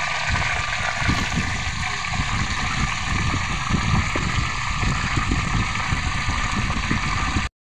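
A whole catfish deep-frying in hot oil in an aluminium wok: a steady sizzle with dense crackling spatter, over a low rumble.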